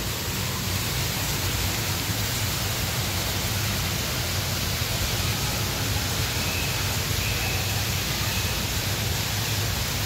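An indoor artificial waterfall streaming down a tall rock wall: a steady, even noise of falling water.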